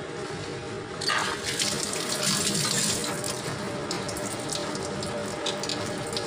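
Tap water running into a stainless steel sink and splashing over a bunch of spring onions, turned on suddenly about a second in, with a few light ticks in the second half.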